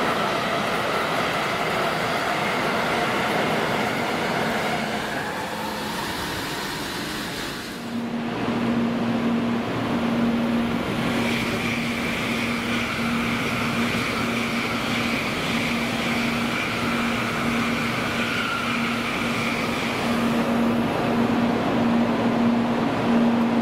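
Tokaido Shinkansen bullet trains (700 and N700 series) running through a station at speed, a loud steady rushing noise over the hiss of track sprinklers spraying water on the snow. The sound changes abruptly about eight seconds in, after which a low pulsing hum runs under it.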